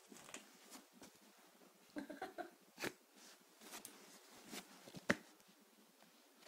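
Cavalier King Charles spaniel puppy playing and scuffling on a carpet: soft scattered clicks, taps and rustles, with a brief small vocal sound from the puppy about two seconds in and a sharper tap about five seconds in.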